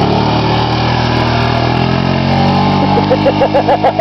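ATV engine running steadily at low speed, its pitch holding even. About three seconds in, a quick run of short rhythmic pulses joins it.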